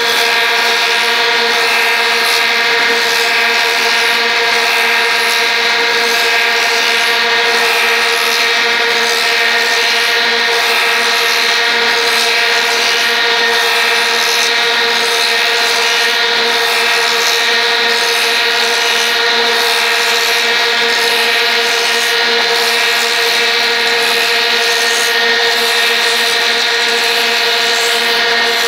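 Multi-spindle wood copy lathe running steadily while shaping several wooden handle blanks at once: a steady machine whine made of several tones over a hiss of cutting.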